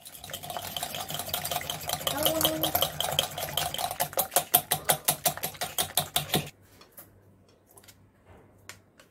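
Wire whisk beating eggs in a glass bowl: fast, rhythmic clinking of metal wire against glass that stops abruptly about six and a half seconds in, followed by a few faint taps.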